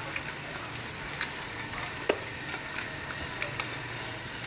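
Rice stir-frying in a hot pan with scrambled egg: a steady sizzle, with the spatula tapping and scraping against the pan now and then, the sharpest tap about two seconds in.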